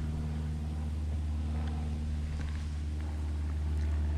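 A boat motor running steadily, a low, even hum that doesn't change.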